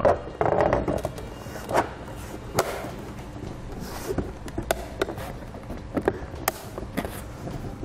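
A K-Source snap-on plastic towing mirror shell knocking, clicking and scraping against the factory mirror housing as it is worked around into place: a scatter of sharp, irregular taps over low rustling.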